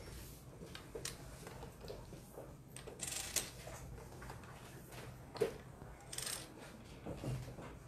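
Plastic Othello discs clicking and scraping as they are handled and set down on the board, with a sharper click about five and a half seconds in.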